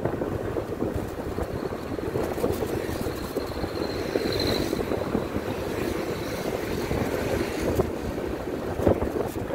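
Wind buffeting the microphone of a moving motorbike, with engine and road noise beneath it, plus a couple of brief thuds near the end.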